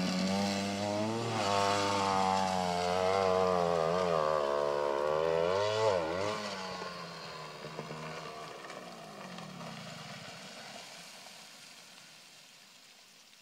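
Trials motorcycle engine revving hard on a steep dirt hill climb, its pitch rising and falling with the throttle and dipping sharply about six seconds in. It then fades away as the bike climbs off, until it is almost gone.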